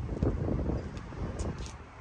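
Wind rumbling and buffeting on the microphone, uneven and strongest in the low end, with a few faint clicks about a second in and near the end.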